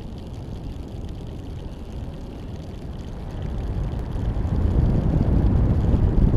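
Wind buffeting the microphone of a high-altitude balloon's payload camera: a low, rough rumble that grows louder about three seconds in.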